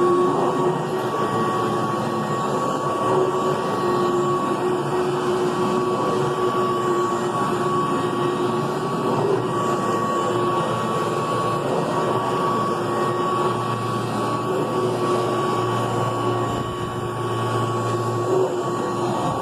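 Upright vacuum cleaner running steadily while vacuuming carpet, with a constant motor whine; a lower hum joins in about two-thirds of the way through.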